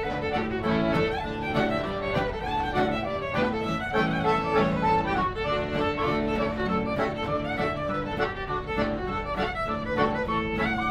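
A live instrumental folk tune on fiddle, acoustic guitar and a small wooden pipe, with the guitar strumming a steady rhythm under the fiddle melody.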